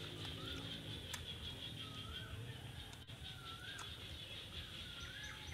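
Forest ambience: a bird repeating a short whistled note that swoops up and down, about once every second and a half, over a steady high-pitched hum.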